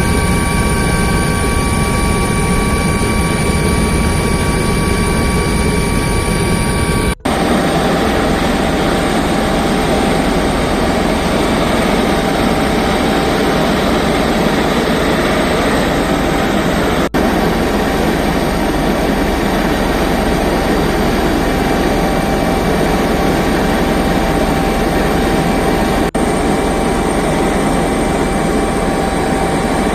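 Military helicopter's turbine engines and rotor running close by, a loud steady noise with a constant high whine. It breaks off abruptly a few times at cuts between shots, the whine changing pitch after the first.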